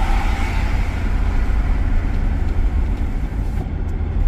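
Steady low rumble of engine and road noise inside the cabin of a 2001 VW Beetle with the 1.8 turbo four-cylinder, driving along the road.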